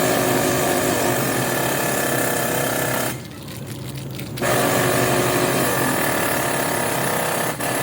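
Power wrench running in two long bursts with a break of about a second between, working the sway bar bushing bracket bolts.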